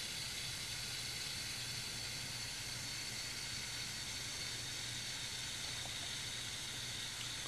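Propane-fired 10-inch metal-fiber-mat infrared burner running at full glow: a steady hiss of gas burning across the mat, with a low hum underneath.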